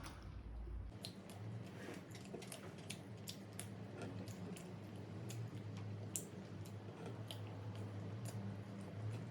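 Close-miked chewing of adobo chicken liver with rice: wet mouth sounds with many small, irregular clicks.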